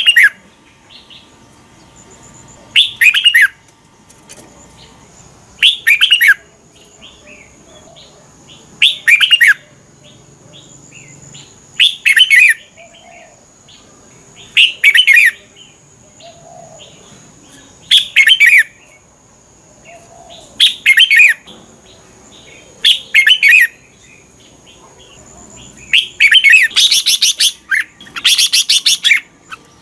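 Red-whiskered bulbul singing short, loud, warbled phrases about every three seconds, with a longer, denser burst of song near the end.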